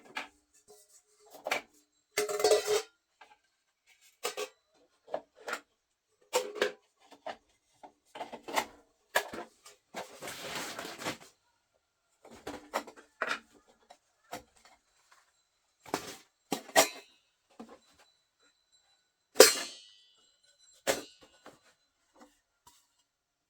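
Irregular knocks and clatter of objects being handled, with about a second and a half of noisy scraping about ten seconds in. The loudest knock, a few seconds from the end, rings briefly like a clink of metal or crockery.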